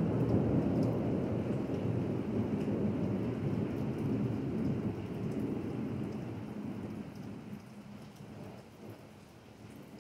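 A long roll of thunder, loudest at the start and slowly fading away over about eight seconds, over steady rain falling on pavement.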